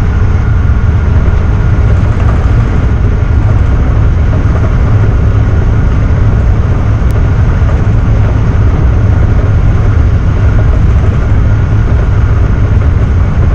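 Tugboat's diesel engines running steadily with a loud, low drone while the propeller churns wash astern.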